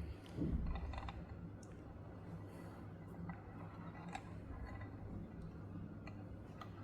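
Faint scattered clicks and light taps from a die-cast model vehicle being handled and turned, over a low steady hum.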